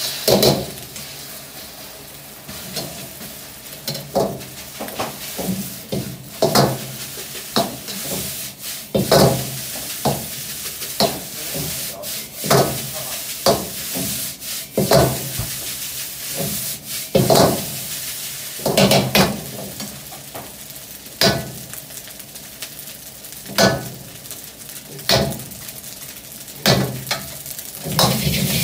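Metal ladle clanking and scraping against a wok about once a second as egg and rice are stir-fried over a gas flame, with a steady sizzle of frying underneath.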